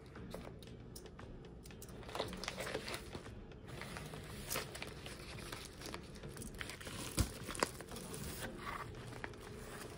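Plastic bubble mailer being handled and pulled open: irregular crinkling and rustling of the plastic, with some tearing as the sealed flap comes apart. Two sharp knocks stand out a little past the middle.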